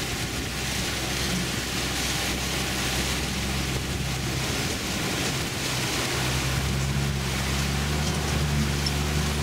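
Engine of an open safari 4x4 running under load as it drives through a flooded track, with water splashing and churning around the wheels. The engine sound grows steadier and stronger about six seconds in.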